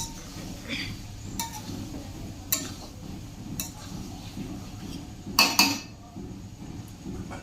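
Metal utensils clinking against cooking pots and dishes during cooking: a few single sharp clinks, then a louder double clink about five and a half seconds in, over a low steady kitchen background.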